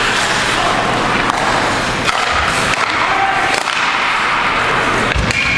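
Ice hockey play on an indoor rink: a steady scraping din of skates on the ice, broken by several sharp clacks of sticks and puck. Near the end a referee's whistle starts, one steady high note, stopping play.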